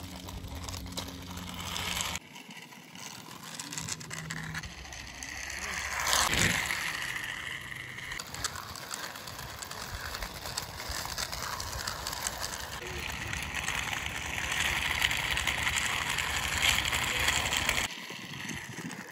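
Small plastic toy autorickshaw's wheels rolling and scraping along a rough concrete wall as it is pushed by hand, with a steady outdoor background and a short louder rustle about six seconds in.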